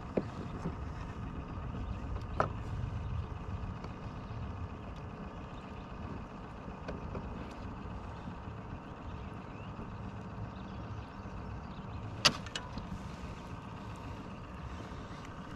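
Steady low rumble of the open air around the kayak, broken by a few short sharp knocks; the loudest knock comes about twelve seconds in.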